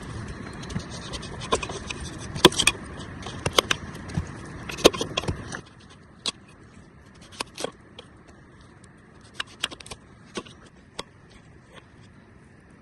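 Irregular sharp clicks, knocks and scrapes of hands-on outdoor cooking work, over a steady background hiss that drops away abruptly a little past halfway.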